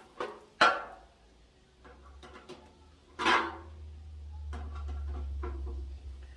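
Scattered clicks and knocks of metal barbecue parts and bolts being handled while bolts are fitted into a smoker's lifting handle, the sharpest click about half a second in and another knock about three seconds in. A low rumble sits underneath in the second half.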